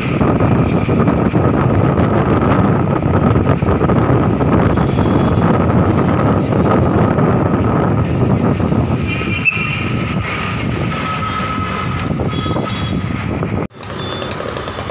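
Engine and road noise heard from inside a moving vehicle, loud and steady. Near the end it cuts off abruptly and gives way to quieter outdoor ambience.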